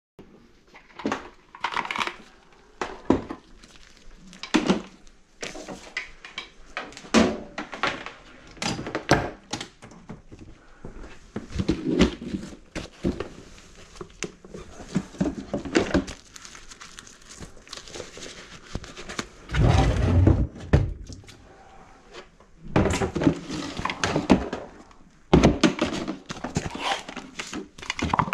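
Irregular knocks, thunks and rustling as a drum drain-cleaning machine, a bucket and rags are handled and set in place under a kitchen sink, with a heavier low thump about twenty seconds in.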